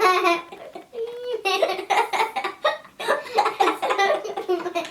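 Children laughing and giggling, with snatches of child speech.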